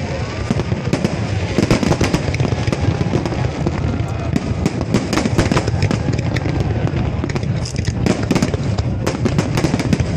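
Fireworks crackling densely and continuously, many sharp pops close together over a low rumble, with people's voices mixed in.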